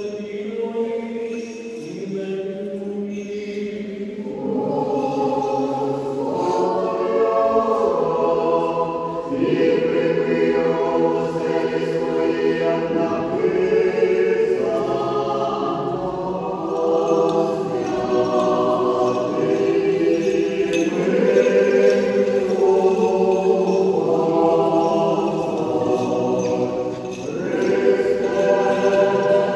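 Slow choral singing in several voices, with long held notes that change pitch every few seconds and no clear words.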